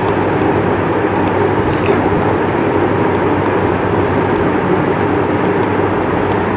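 A steady rumbling background noise with a faint low hum, unbroken throughout, and a soft rustle about two seconds in.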